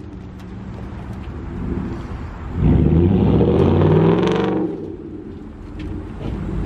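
Ford F-150 pickup engine revving as the truck accelerates past on a dirt track, its rear wheels spinning. The engine noise swells to its loudest for about two seconds midway, with the pitch rising and falling, then drops away.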